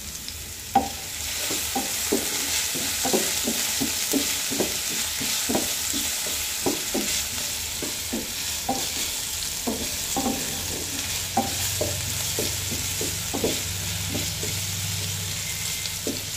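Potato sticks sizzling in hot oil in a non-stick frying pan while a wooden spatula stirs them, knocking and scraping against the pan about twice a second. A sharp knock about a second in, after which the sizzling rises.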